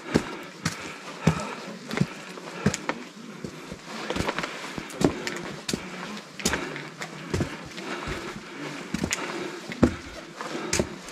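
A hiker's footsteps and gear knocking on a rocky mountain trail: irregular sharp knocks and scuffs, about two a second.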